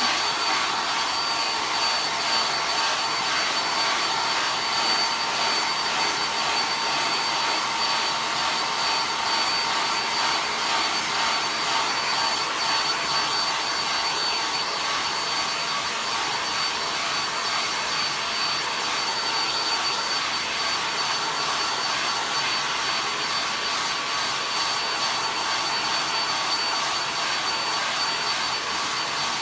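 Handheld hair dryer running steadily: a constant blowing rush with a thin high whine over it.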